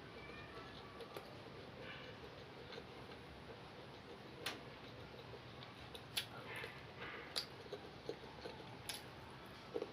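Faint eating sounds as rice is eaten off a plate: scattered light clicks and ticks a second or two apart, with a few soft noisy rustles between them.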